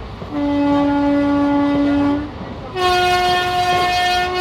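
Indian Railways train horn sounding two long blasts, a lower-pitched one and then a higher-pitched one a moment later, over the rumble of the running train.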